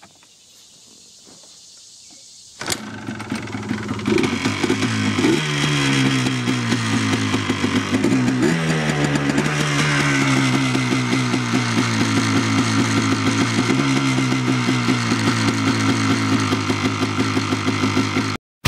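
The 2001 Yamaha Blaster's 200cc two-stroke single-cylinder engine starts suddenly about three seconds in and settles into a steady idle. Its pitch rises and falls back twice with quick blips of the throttle.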